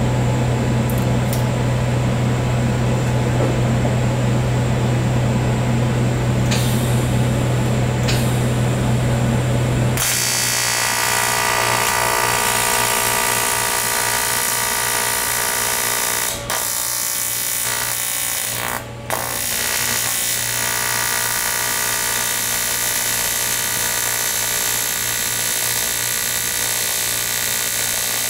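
A steady low hum, then about ten seconds in a TIG welding arc on aluminum strikes and buzzes with a steady hiss. The buzz dips briefly twice about halfway through.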